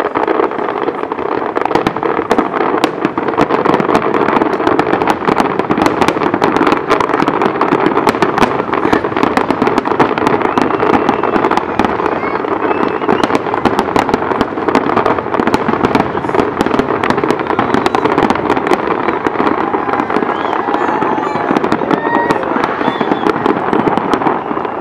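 Fireworks display going off without a break: a dense, continuous stream of bangs and crackles from many shells bursting at once.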